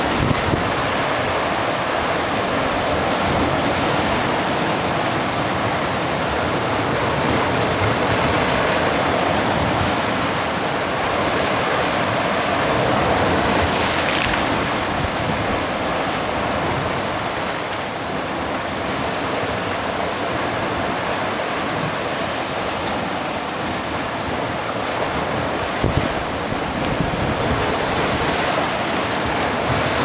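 Rough sea surf washing and breaking against a stone breakwater in a steady rush, with wind buffeting the microphone.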